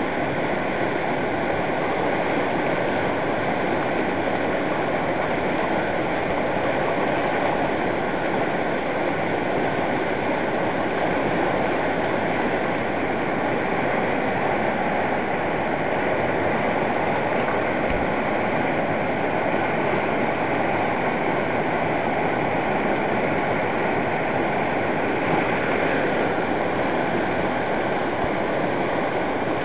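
Whitewater rapid: fast river water rushing and churning over boulders in a loud, steady rush.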